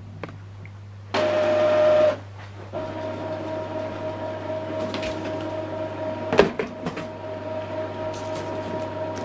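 Epson XP-3200 inkjet printer running its ink initialization, the first ink charge after new cartridges. Its motor whirs loudly for about a second, then after a short pause runs on with a steady whine, with a sharp click a little past six seconds in.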